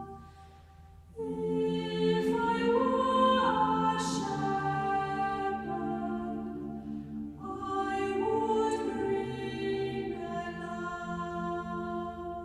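A choir singing slow, long-held notes in two phrases, the first starting about a second in and the second about seven seconds in, fading out near the end.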